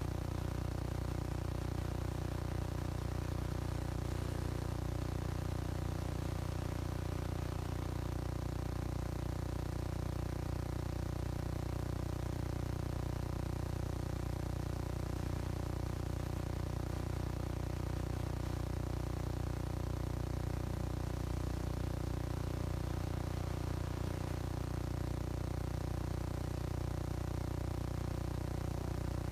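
A steady low hum made of several fixed tones, with no change in pitch or loudness.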